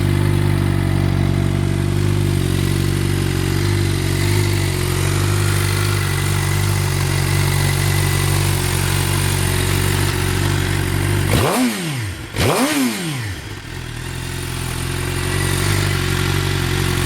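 2012 Suzuki GSX-R750's inline-four engine, breathing through a Two Brothers carbon aftermarket exhaust, idling steadily. Two quick throttle blips come about a second apart, two-thirds of the way in, before it drops back to a steady idle.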